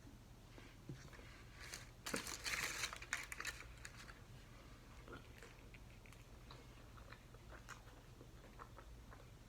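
Eating sounds close to the microphone: a burst of crunching about two seconds in, then faint chewing with small mouth clicks.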